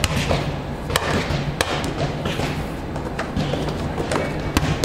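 Volleyballs thudding, bounced on the court floor and struck, echoing in a large hall: several sharp, irregularly spaced thuds over a steady hall din, with music playing in the background.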